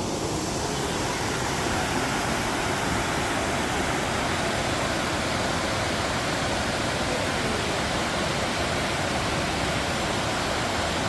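Waterfall: falling water making a steady, even rush of noise.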